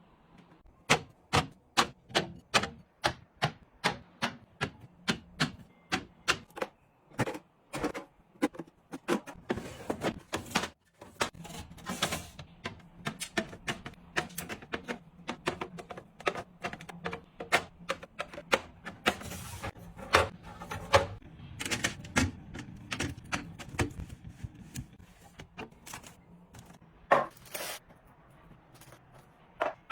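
Small hard items being set down and handled: a run of sharp clicks and taps, about two a second at first, then busier, softer handling sounds with a few louder knocks near the end.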